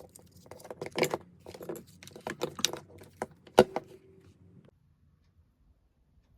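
Irregular clicks and light rattles of small hard objects being handled, with one sharp click near the middle, stopping a little over halfway through.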